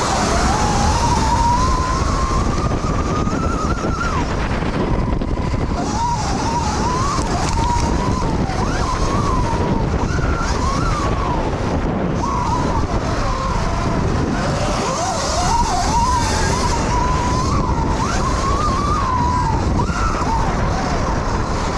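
Electric dirt bike's motor whine, rising and falling in pitch as the rider works the throttle, over a heavy rushing rumble of wind on the microphone.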